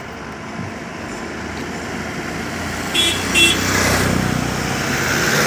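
Road traffic: a motor vehicle approaches and passes, growing louder. About three seconds in, a horn gives two short toots.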